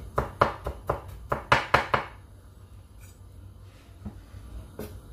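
Chef's knife chopping garlic on a wooden cutting board: about nine quick, sharp knocks over the first two seconds, then only a couple of light taps near the end.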